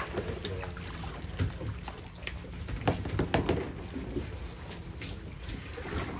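Small boat's engine running with a steady low hum under water sounds, with a few sharp knocks.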